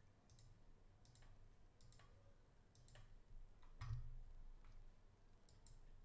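Faint computer mouse clicks, several in quick pairs, about one every second as folders and a file are opened; a brief low thump about four seconds in.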